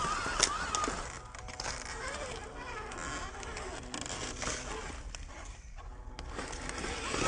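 Dry leaves and twigs crackling and rustling as a small RC crawler truck pushes through them, with a sharp snap about half a second in.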